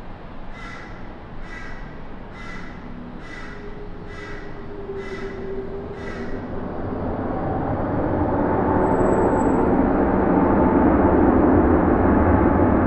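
A bird calls seven times, about once a second, over a low jet rumble. From about halfway through, the jet noise of a Korean Air Boeing 777 on the runway swells and grows louder, with a steady whine in it.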